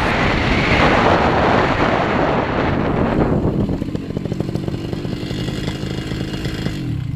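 Paramotor engine and propeller running, with rushing air on the microphone, during the final low approach. About three seconds in it throttles back to a quieter, steady note as the pilot comes down to land.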